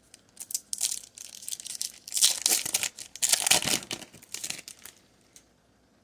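Foil wrapper of a Pokémon TCG Chilling Reign booster pack crinkling and tearing as it is ripped open and the cards are slid out. The crackling is loudest in the middle and stops about five seconds in.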